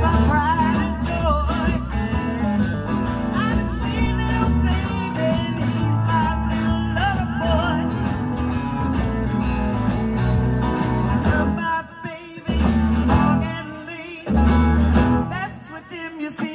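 Live band playing an amplified blues-rock shuffle, electric guitars over bass and drums. Near the end the band stops short a few times, in brief breaks.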